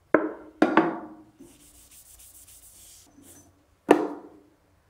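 Container of sanding sealer handled against a cloth while the cloth is loaded: three sharp knocks in the first second and another near the end, each with a short hollow ring, and a soft rubbing hiss in between.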